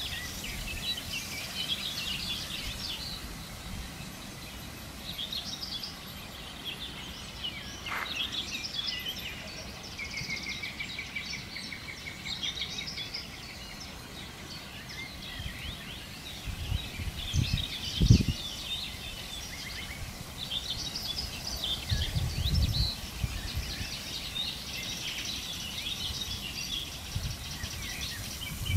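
Several birds singing in a morning chorus of chirps and trills, with one bird giving a fast run of repeated notes about ten seconds in. A few low thumps come on the microphone in the second half, the sharpest about 18 seconds in.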